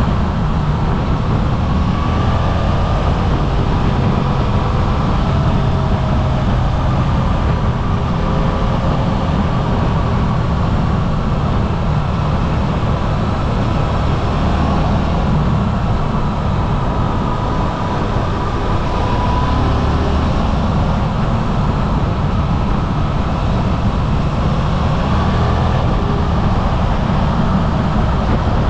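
Suzuki V-Strom 800RE's parallel-twin engine running at a steady road speed, heard from a cockpit-mounted camera, with wind and road noise over it. It holds an even pitch and level throughout, with no big revs or gear changes.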